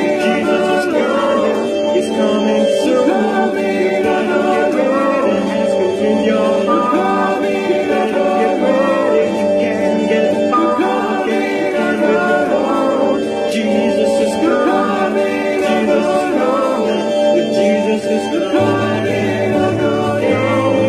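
Early-1970s Christian rock song: a band playing, with group voices singing but no clear words, at a steady loud level.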